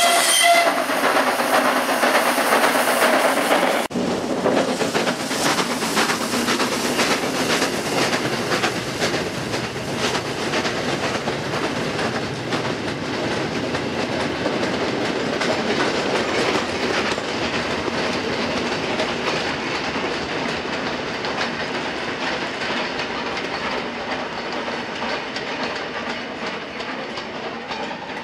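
J94 'Austerity' 0-6-0 saddle tank steam locomotive hauling a freight past: the tail of its steam whistle cuts off in the first moment. Then a long string of open goods wagons rolls by with a rhythmic clickety-clack of wheels over rail joints, fading as the train draws away.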